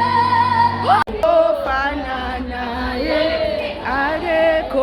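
Background music: a song with a woman singing, a long held note cut off abruptly about a second in, followed by another sung passage.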